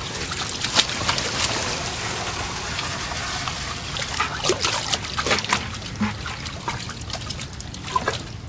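Water pouring and splashing as a bag of bass is emptied into a tub of water, a steady rush for the first few seconds. After that come scattered short splashes and sloshes as hands and fish move in the tub.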